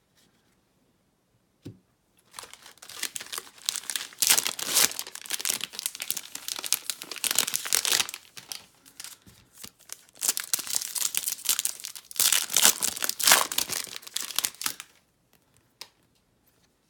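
Foil wrapper of a Topps Chrome baseball card pack crinkling and tearing as it is torn open by hand, in two long stretches with a short pause a little past halfway.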